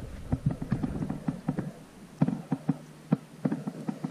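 A string of irregular light taps and knocks close to the microphone, made by six-week-old Airedale Terrier puppies moving and bumping about right beside the camera.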